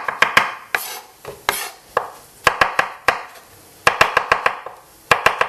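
Chef's knife slicing button mushrooms on a wooden cutting board: quick runs of sharp knocks of the blade on the board, broken by pauses and single strokes.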